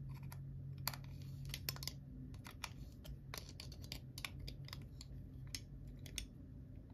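Faint, irregular small metallic clicks and ticks as needle-nose pliers grip and turn the threaded rear cap onto a VFC MP5 gas blowback bolt, over a low steady hum.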